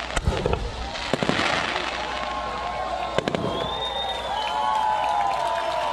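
Fireworks display of mines and comets firing: a few sharp bangs, about a second apart early on and another past three seconds, over a continuous crackling hiss. From about two seconds in, long wavering tones ride over it.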